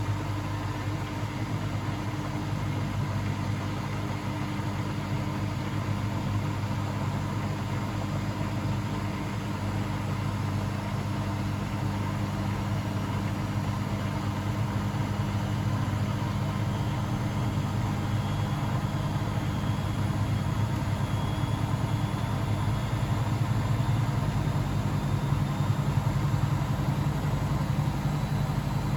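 Blomberg WAF 7442 SL washing machine running: a steady low motor hum that grows a little louder over the last several seconds.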